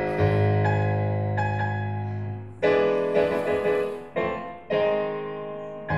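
Solo piano playing the instrumental close of a hymn. A long held chord is followed, about two and a half seconds in, by a run of shorter chords, each struck and left to fade.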